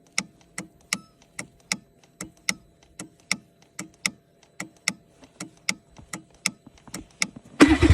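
Starter solenoid clicking over and over, about three clicks a second, as the start button is pressed, with no cranking between clicks. Near the end the engine suddenly catches and starts running.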